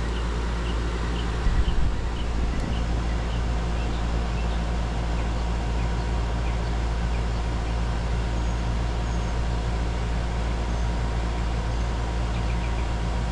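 Outdoor air-conditioner condensing unit running with a steady low hum, a few short clicks about one and a half and two and a half seconds in.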